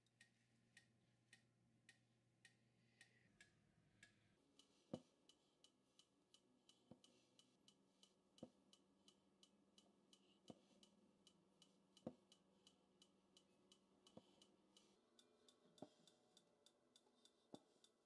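Near silence with faint, even ticking about twice a second, like a clock, and a slightly louder click every second or two.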